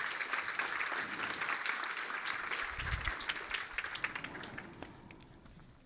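Audience applauding: many hands clapping, the clapping thinning and dying away over the last couple of seconds.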